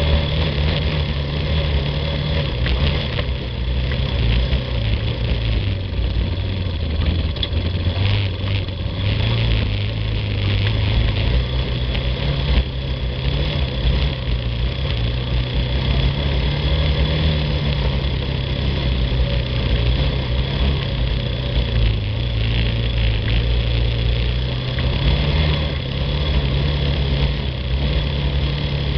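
Yamaha ATV's single-cylinder engine running under way on a dirt trail, its pitch rising and falling gently with the throttle.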